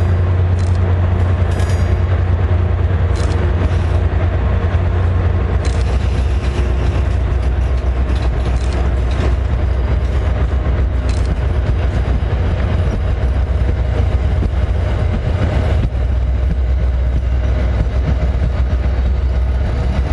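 Train engine running steadily with a deep, constant hum, with a few faint clicks in the first half.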